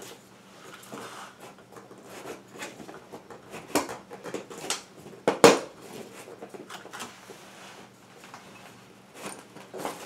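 Scattered small metallic clicks and clinks of a ceiling light fixture's metal canopy and mounting hardware being twisted and worked loose by hand, with one sharper, louder clack a little past halfway.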